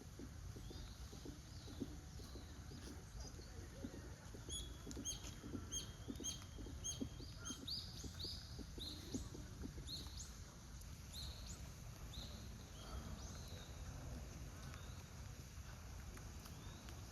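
Small bird calling: a run of short, clear, high chirps repeated many times, quickening in the middle, over a steady low background rumble.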